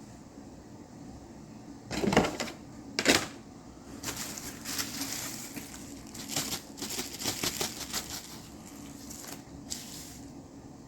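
Plastic model-kit parts and their bag being handled: two sharp knocks about two and three seconds in, then a stretch of crinkling and rustling.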